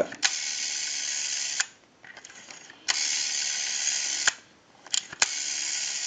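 Rotary dial of a monophone telephone pulled round and let go three times, each return a steady mechanical whir of about a second and a half with clicks between the pulls. The return is sluggish: the dial needs cleaning, oiling and adjusting.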